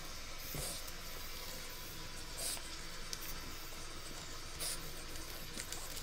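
Faint steady hiss with a few soft scuffs and rustles, about half a second, two and a half and four and a half seconds in: French Bulldog puppies' paws moving about on a plastic play mat and blanket.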